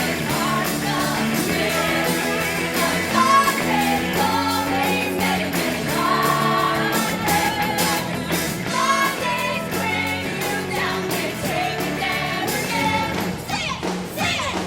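Pop-rock music with a sung vocal melody over band accompaniment.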